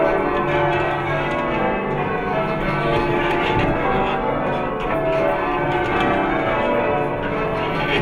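Church tower bells ringing changes: a steady run of overlapping bell strikes, each bell ringing on under the next.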